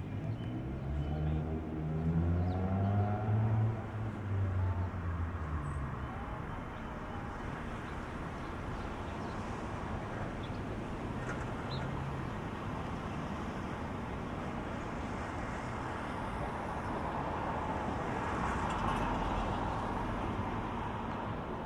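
City street traffic. A motor vehicle accelerates nearby in the first few seconds, its engine note rising in pitch. After that comes steady traffic and tyre noise, swelling slightly as a vehicle passes near the end.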